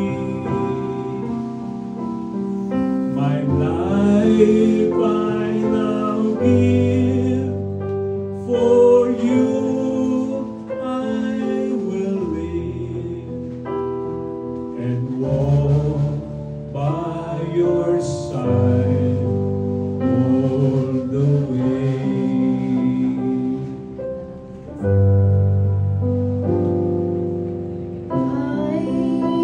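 A man and a woman singing a song through microphones over instrumental accompaniment; the man sings first and the woman takes the lead near the end.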